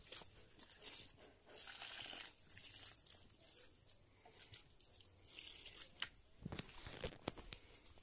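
Water poured from a plastic mug splashing faintly onto potted plants' leaves and soil, in a few short spells, among scattered clicks and rustles.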